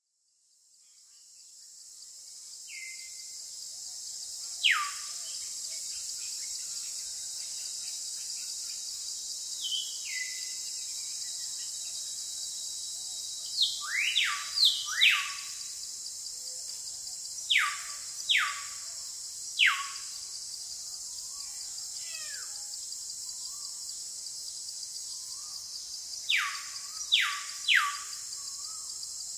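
Tropical forest ambience: a steady high-pitched insect chorus, fading in over the first few seconds, with a bird giving loud, sharply falling whistled calls, often in quick runs of two to four.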